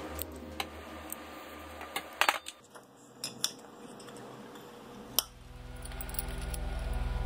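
A few light, sharp metallic clinks and clicks, scattered over the first five seconds. After that, a low steady hum grows gradually louder.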